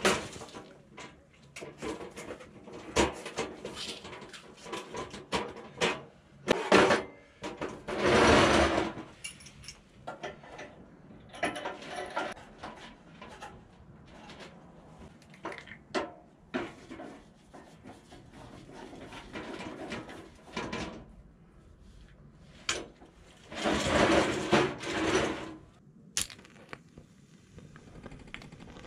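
Objects being handled: scattered clicks and knocks, with two longer rustling or scraping sounds, one about eight seconds in and one around twenty-four seconds.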